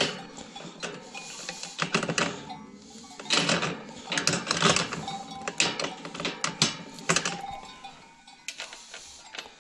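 A padlock and key clinking on a metal rebar barn gate as it is unlocked and handled. The gate rattles, with a quick run of sharp metallic clicks and a few louder scraping rattles in the middle.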